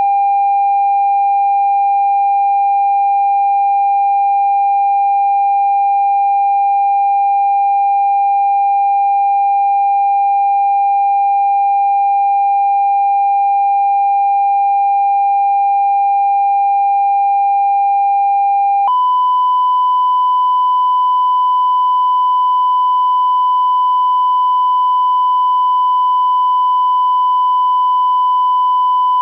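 Electronic sine-wave test tone for checking a phone speaker's mid-range, held perfectly steady, then stepping abruptly up to a slightly higher steady pitch about nineteen seconds in.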